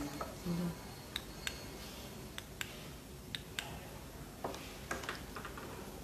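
Scattered light clicks and taps, about a dozen over the few seconds, from a phone being handled and adjusted, over a faint steady room hiss.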